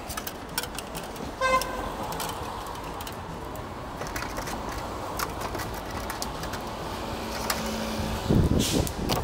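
A short car-horn toot about a second and a half in, over street and kitchen background noise with scattered sharp clicks, and a louder low rumble near the end.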